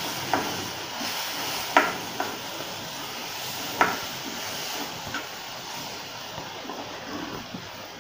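Hot water poured a little at a time into ghee-roasted ground almonds in a hot pan, sizzling and hissing, with the spatula knocking sharply against the pan a few times. The sizzling fades gradually toward the end.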